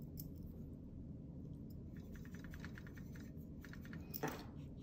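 Paintbrush working paint in a watercolour palette tin, heard as a faint run of quick light ticks, with a brief soft rustle near the end.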